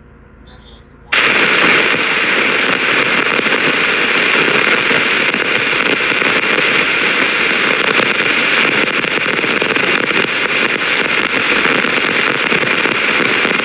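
Loud, dense crackling noise that starts abruptly about a second in and then runs on steadily.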